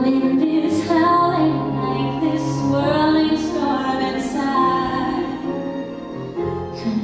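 A woman's voice singing a slow ballad over instrumental accompaniment, holding long notes.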